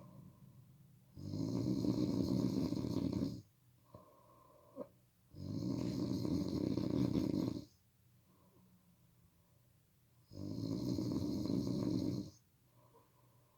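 A person snoring: three long, loud snores, each about two seconds, spaced about four seconds apart, with quiet breathing between. There is a brief click between the first and second snore.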